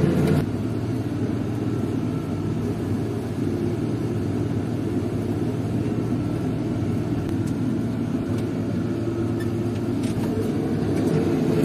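Tractor engine running steadily under load, pulling a plough through heavy clay soil. The level drops a little about half a second in and then holds even.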